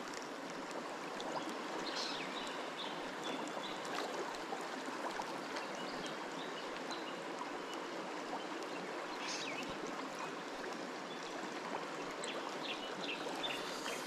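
Shallow river running steadily over rocks and riffles, with a few faint, brief high-pitched sounds near the end.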